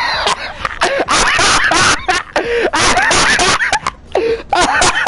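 A man laughing uncontrollably until he wheezes: rapid breathy gasps alternating with short, high, squeaky whoops.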